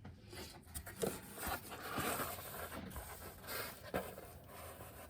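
Rustling, rubbing and scraping of things being handled close to the microphone, with a few light clicks. It stops abruptly at the end.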